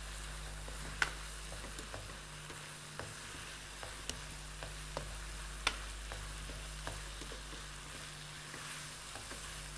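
Chicken and sliced vegetables sizzling steadily as they stir-fry in oil in a wok, with a spatula clicking against the pan about once a second as they are stirred.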